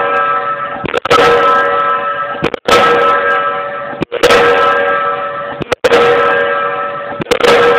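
Diesel pile hammer driving a pile: a sharp metallic strike about every one and a half seconds, five in all, each followed by a ringing tone that fades away before the next blow.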